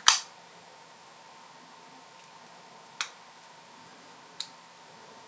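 Dewalt folding pocket knife with a ball-bearing pivot clicking as it is worked by hand: one sharp snap at the start, the loudest, then a second crisp click about three seconds in and a fainter one about a second and a half later.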